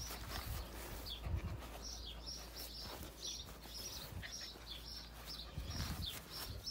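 Small bird chirping over and over, short falling chirps a few times a second, with a few soft low thumps.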